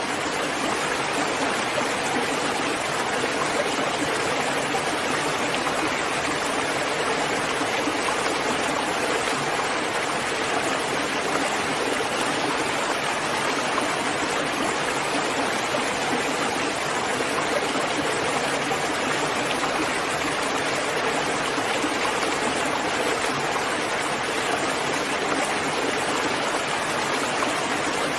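Steady rain falling, an even, unbroken hiss with no pauses or single drops standing out.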